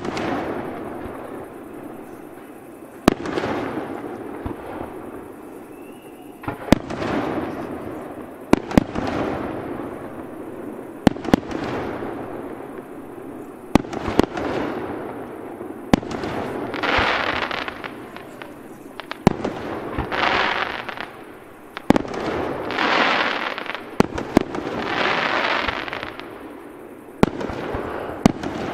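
A fireworks display: aerial shells bursting with sharp bangs every two to three seconds, each followed by a fading hiss. In the second half, four longer, louder hissing rushes follow the bangs.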